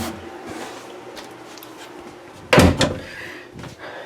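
A single loud thud about two and a half seconds in, with a few lighter clicks and knocks before and after over quiet room hiss.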